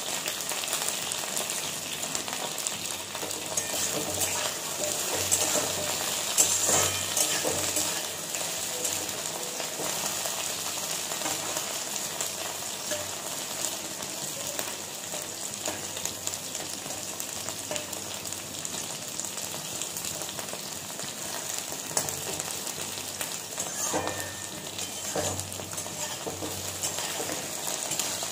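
Cut okra sizzling as it fries in oil in a steel kadai, with a perforated steel spatula scraping and stirring against the pan now and then. The stirring is loudest a few seconds in and again near the end.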